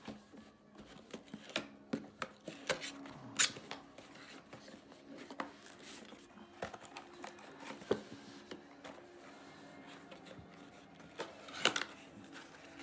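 Cardboard packaging being opened and handled: flaps pulled open and an inner box slid out, with scattered sharp cardboard clicks, scrapes and rubbing. The loudest snaps come about three and a half seconds in and near the end.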